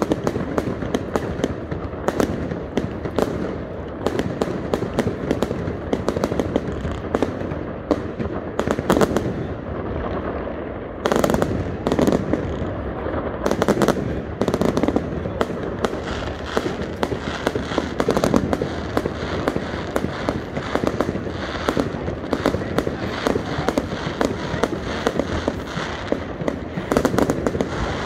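Fireworks display: aerial shells bursting overhead, many bangs in quick succession. After a brief lull, a cluster of strong bangs comes about eleven seconds in.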